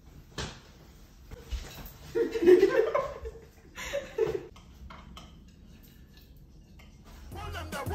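A short muffled vocal burst, like a laugh or hum, a couple of seconds in, then faint clinks and scrapes of a knife cutting a chocolate tray bake on a plate. Music starts near the end.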